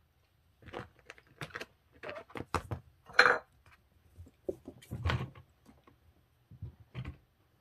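Cats' paws and claws tapping and scuffling on a laminate wood floor as kittens play, an irregular run of light taps and knocks with a louder scuff a little past three seconds in.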